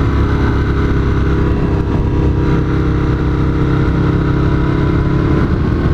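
Motorcycle engine running at a steady cruise, heard from a helmet-mounted camera with wind rushing past.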